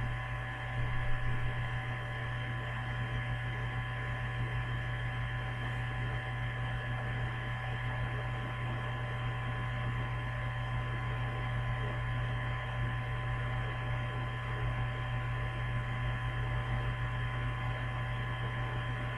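Steady electrical hum, low and constant, with a few faint steady whines above it: background noise picked up by the recording setup.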